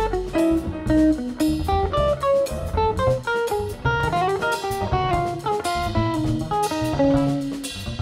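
Jazz guitar solo on an archtop electric guitar, quick lines of single notes, over plucked upright bass and drums.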